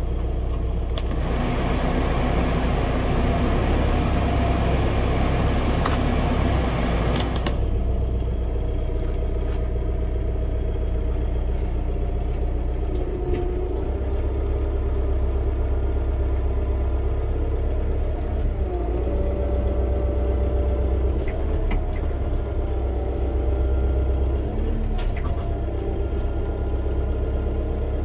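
Mahindra 105S tractor's Doosan four-cylinder turbocharged diesel running steadily, heard from inside the cab. For the first several seconds a loud rushing hiss lies over the engine, stopping abruptly about seven and a half seconds in. Later the engine note dips and wavers while the front loader arms are raised.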